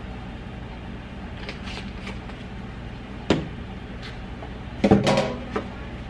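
Kitchen handling sounds at the stove and counter: a few light taps about a second and a half in, a sharp knock a little past three seconds, then a short clatter of knocks around five seconds, over a steady low hum.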